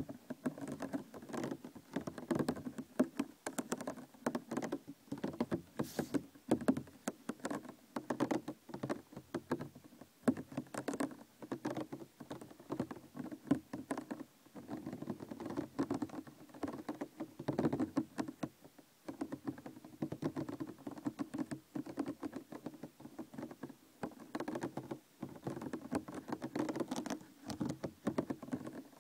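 Plastic container handled close to the microphone: a dense, continuous run of small taps, clicks and crinkles.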